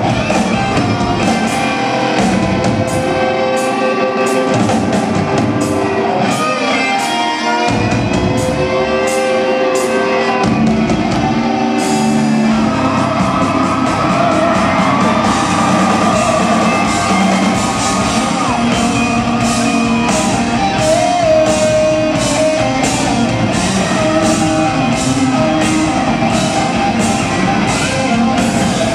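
Live rock band playing loud: distorted electric guitars over a drum kit, with cymbal and drum hits keeping a steady beat of about two a second, heard from the crowd in a large hall.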